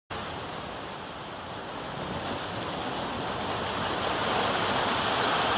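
A steady rushing noise that slowly grows louder.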